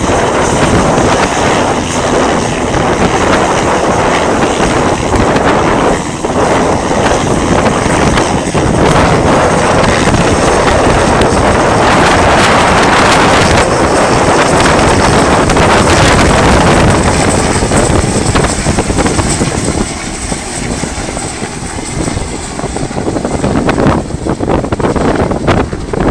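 Strong wind buffeting the microphone, with a helicopter's rotor and turbine engine running beneath it as it hovers over the water and then moves off. The wind noise eases slightly about twenty seconds in.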